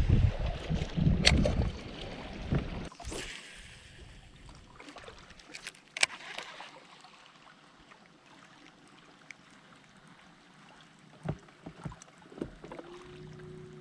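Wind rumbling on the microphone on a bass boat for the first few seconds, then a quiet stretch with scattered clicks and knocks of fishing gear. Near the end a steady low hum sets in for about two seconds.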